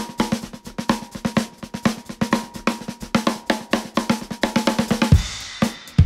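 Drum kit played alone: fast, busy snare strokes and rolls with bass drum. About five seconds in, a cymbal crash rings out and deep bass hits come in.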